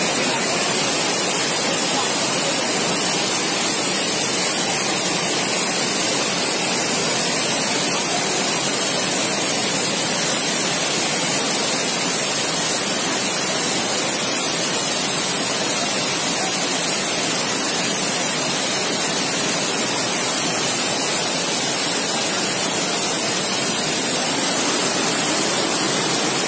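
Fast-flowing floodwater rushing through a street: a loud, steady, unbroken rush of water.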